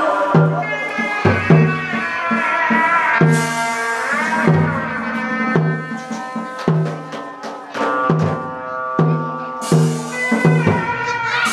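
Hát bội theatre ensemble music: a low drum struck steadily about once a second under a gliding, wavering melody line, with sharp percussion clicks between the beats.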